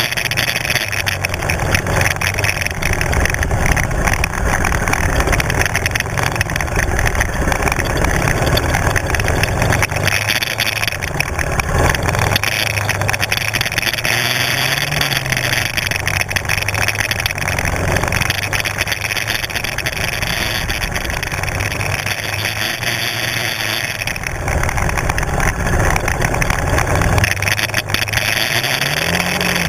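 Kymco 250 quad's engine running at low speed on the move, its pitch rising and falling with the throttle and climbing briefly about halfway and again near the end, over a steady rushing noise.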